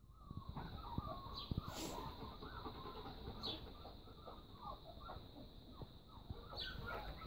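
Hens clucking in a busy, continuous chatter of short calls.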